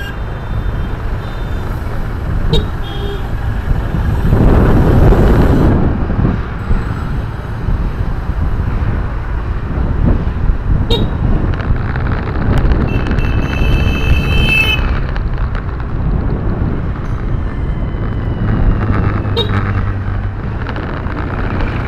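Road and engine noise heard inside a moving car, with a louder rush of passing traffic about four seconds in. Vehicle horns toot briefly, once early on a short beep and later a held horn about two seconds long just past the middle.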